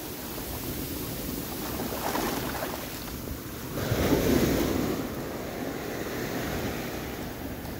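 Ocean surf washing up the beach, with wind on the microphone; the wash swells twice, louder the second time about four seconds in.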